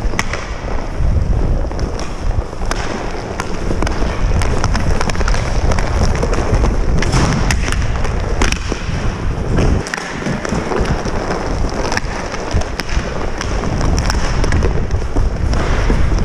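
Hockey play heard from a helmet-mounted camera: a steady rushing rumble of skating with frequent sharp clacks of sticks on the puck and rink surface.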